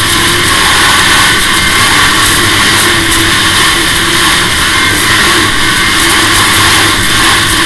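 2005 Arctic Cat F6 EFI snowmobile's two-stroke engine running steadily at trail speed, heard from on board. An even, loud rushing noise lies over it.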